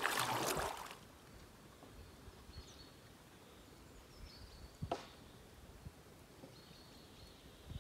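About a second of water splashing around a kayak paddle, then quiet calm-river ambience with a few faint, short bird chirps and a single sharp knock about five seconds in.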